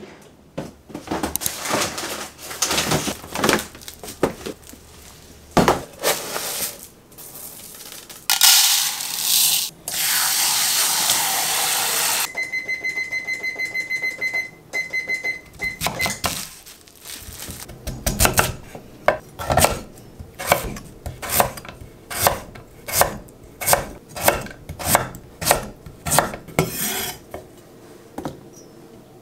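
Kitchen clatter of containers and a drawer, then a steady rushing noise for about four seconds. A button is pressed over and over, giving a quick run of electronic beeps. In the second half a kitchen knife chops sweet potato on a wooden cutting board, steady strokes about twice a second.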